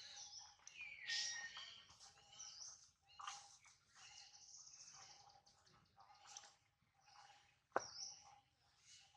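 A baby macaque's high-pitched squeals and chirps, with a falling squeal about a second in, over a faint steady tone; a single sharp click near the end.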